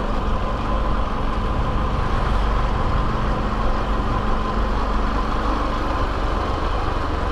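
Small motorbike engine running steadily while riding along at low speed, with wind and road noise on the microphone.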